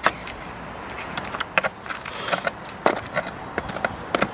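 Hand tool clicking and knocking against a motorcycle seat's metal pan as the old PVC seat cover is pried off, with a brief scraping rasp about two seconds in.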